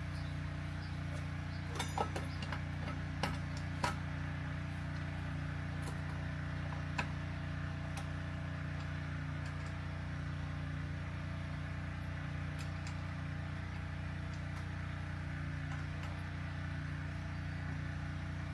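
Steady low room hum, with a few light clicks and knocks during the first several seconds.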